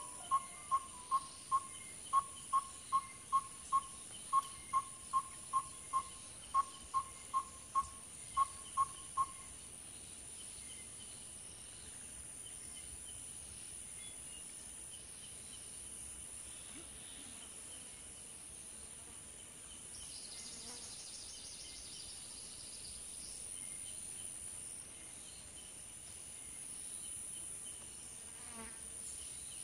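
Insect chorus: a steady high buzz, with a short peep repeated about three times a second for the first nine seconds and a brief rapid trill about two-thirds of the way through.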